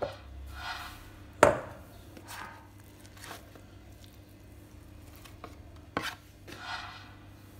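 Two sharp knocks on a glass mixing bowl, the loudest about one and a half seconds in and another near six seconds, between soft scraping swishes as ground beef is pushed off a plastic tray into the bowl.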